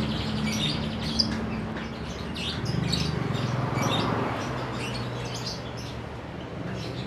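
Many caged lovebirds chirping at once, a dense chatter of short high chirps, over a steady low hum.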